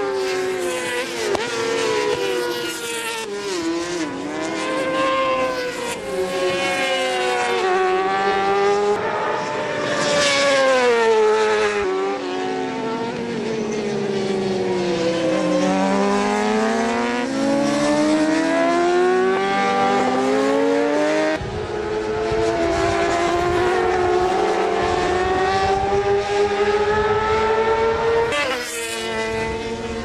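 Racing motorcycle engines at high revs, several at once, their pitch climbing and dropping as the bikes accelerate and brake through the corners. About two-thirds of the way in, a low rumble joins.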